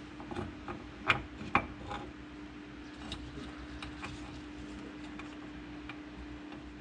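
Light metal clicks and clinks of parts being handled inside an opened Ford 8.8 limited-slip differential carrier, a few scattered knocks in the first three seconds, over a steady low hum.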